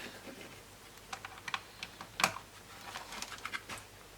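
Light, irregular clicks and taps of plastic parts on a laptop being handled during disassembly: about a dozen small clicks, the loudest a little over two seconds in.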